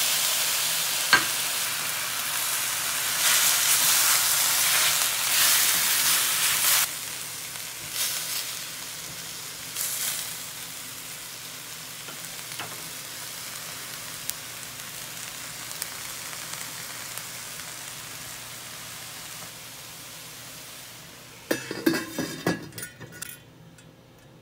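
Raw chicken gizzards and livers sizzling loudly in hot oil in a stainless steel pan, with short louder flare-ups as they are stirred, the sizzle then settling lower and steady. Near the end a clatter of knocks as a metal pan lid goes on, after which the frying is much quieter.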